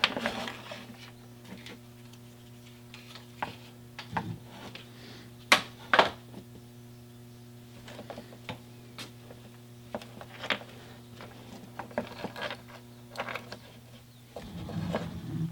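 Scattered light clicks and taps of small cable parts being handled and fitted into a throttle-cable distribution box, over a steady low hum. A rougher low rumbling noise begins near the end.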